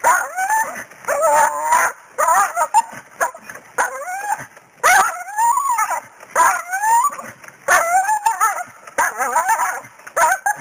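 Dog whining and yelping in high-pitched calls that rise and fall, one after another about once a second, as she tugs at a branch gripped in her jaws. Short sharp cracks and rustles from the brush come between the calls.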